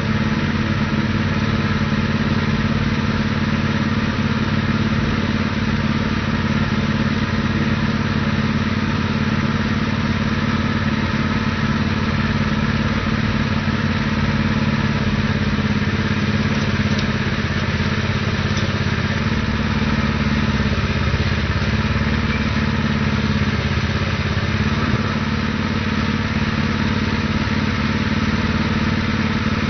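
Predator 212cc single-cylinder petrol engine of a portable cable tool drill rig running steadily, driving the cable winch while the borehole is bailed. Its lowest tone shifts slightly about two-thirds of the way through.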